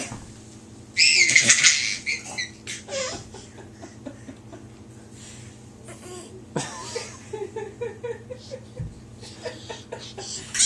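A baby squealing with laughter, a loud high-pitched shriek about a second in, followed later by quieter babbling sounds.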